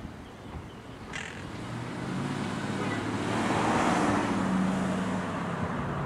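A vehicle passing, its road and engine noise swelling to a peak about four seconds in and easing off, with a low hum underneath. A brief harsh parrot squawk comes about a second in.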